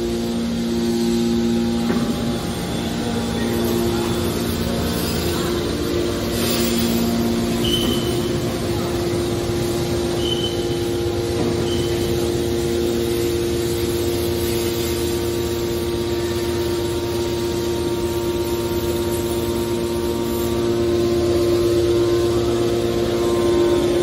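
Hydraulic scrap-metal baler's power unit running: electric motors driving hydraulic pumps give a steady hum with a steady whine.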